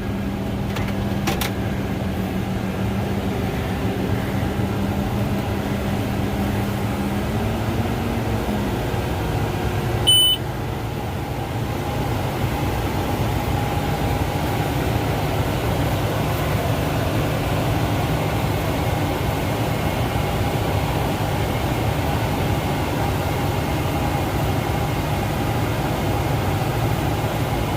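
Tractor engine running steadily, heard from inside the cab with the air-conditioning fan going. About eight seconds in the engine's pitch rises briefly, then settles lower, and a short sharp click sounds about two seconds later.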